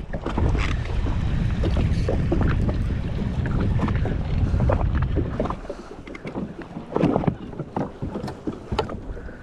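Wind buffeting the microphone with water lapping against the jet ski's hull, a heavy low rumble for the first five seconds or so. After that it drops back to scattered sharp clicks and knocks.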